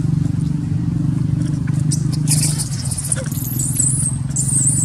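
A steady low motor hum. About halfway through, high-pitched wavy squeaks come in and go on intermittently to the end.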